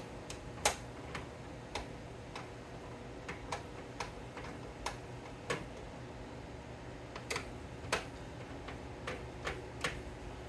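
Irregular light clicks and taps of hard plastic and metal PC parts being handled, as an RTX 4060 graphics card is taken out of the build.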